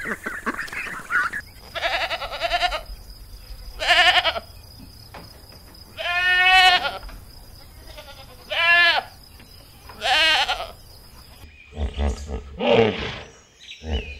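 Goats bleating: five wavering bleats, each under a second long and about two seconds apart. Before them, at the very start, ducks quack briefly, and after a change near the end come a few louder, lower animal calls.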